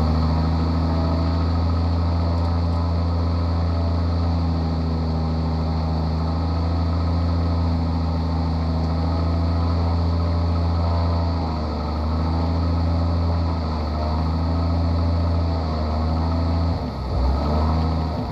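Light aircraft's piston engine and propeller running steadily at low power, heard from inside the closed cockpit canopy. Its pitch dips briefly twice in the second half.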